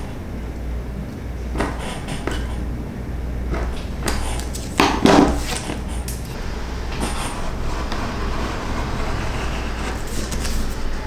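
Leatherworking hand tools handled on a wooden workbench: light scrapes and taps, with a few louder knocks about five seconds in, over a steady low rumble.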